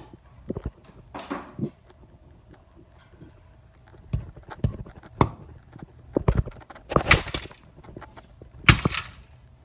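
Scattered knocks and clatters of hammers and other hand tools being picked up and handled on a concrete floor, the loudest about seven and nine seconds in.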